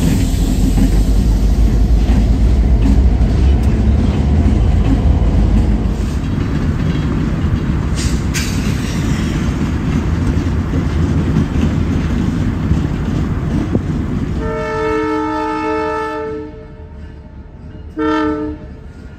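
Canadian Pacific diesel freight locomotives rumbling past close by, with a loud, low engine sound. About fourteen seconds in, the lead locomotive's multi-note air horn sounds one long blast, then a short blast near the end, its signal for the road crossing.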